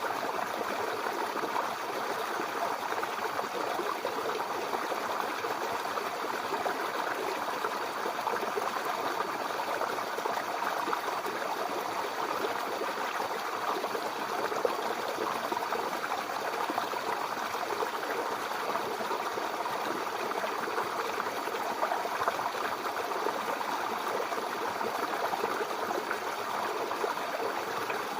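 Mountain river flowing, a steady rushing and babbling of water over rocks.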